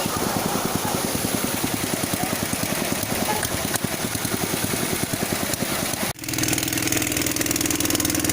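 A small engine running with a fast, even firing beat; about six seconds in the sound breaks off abruptly and gives way to a steadier, evenly pitched engine hum.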